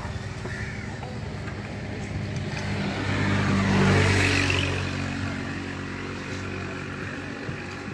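Motor vehicle engine running, growing louder to a peak about halfway through and then fading, as a vehicle passes.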